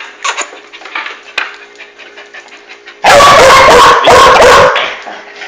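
A dog barking loudly and close up, a quick run of several barks starting about three seconds in, with faint music underneath.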